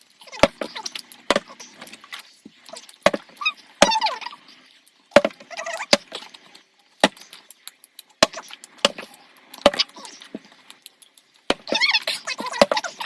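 Irregular sharp clicks and knocks on a tabletop, about one or two a second, with a few brief bursts of voices in between.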